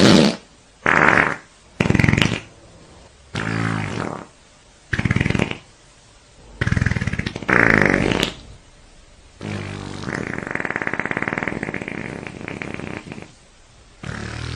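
A run of fart sound effects: about nine separate buzzy farts of varying pitch, most lasting under a second, then one long drawn-out fart of about four seconds near the end.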